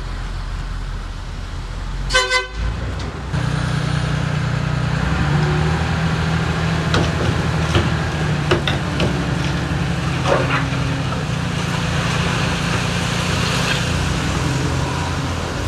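Diesel engine of heavy earthmoving machinery running, with a short horn toot about two seconds in. The engine grows louder a second later, with a few clanks over it.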